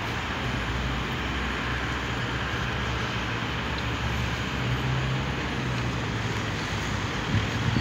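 Tram close by, with a steady low hum over a haze of city traffic noise.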